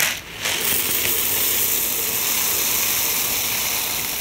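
Clear plastic slushie beads poured in a steady rushing patter from a plastic bag onto slime, starting about half a second in after a brief crinkle of the bag.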